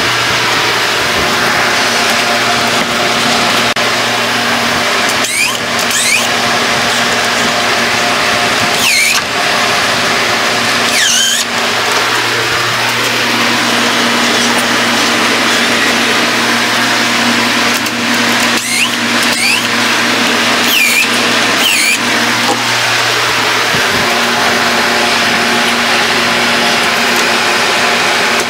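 Steady, loud machine running, a continuous drone with a low hum beneath it, dipping briefly a few times.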